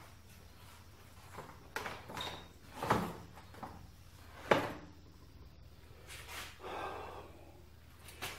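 A large wooden board sliding and knocking on a drill press table as it is shifted about, a few short scrapes and bumps with a sharp knock about four and a half seconds in.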